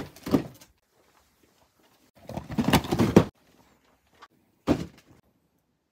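Cardboard model-kit boxes being handled: a couple of knocks at the start, a rough scraping slide lasting about a second in the middle, and another knock near the end.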